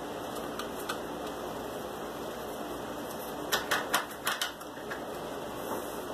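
Steady hiss of room noise, with a quick run of about six sharp clicks and taps around three and a half seconds in, from small objects being handled on a workbench. A couple of faint ticks come near the start.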